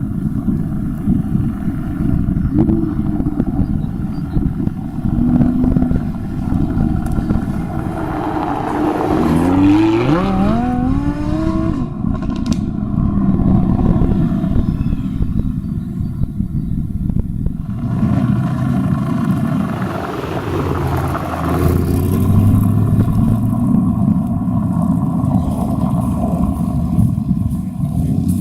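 Performance car engines and exhausts rumbling as cars pass. About nine seconds in, one car accelerates hard, its engine pitch climbing steeply through two gears. A short sharp crack follows soon after, and near the end there is a deep steady engine drone.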